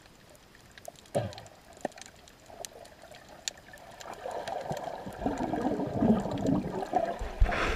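Underwater sound heard from a camera on the sea floor: scattered sharp clicks, then from about four seconds in a louder churning rush of moving water, with a knock near the end.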